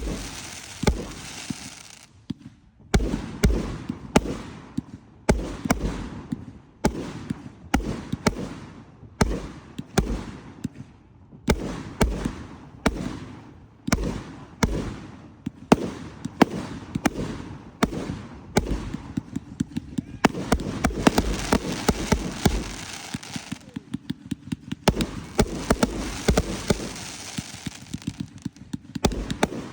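Fireworks display: aerial shells bursting one after another, loud bangs about once a second with crackling between them, growing into a denser crackle in the later part.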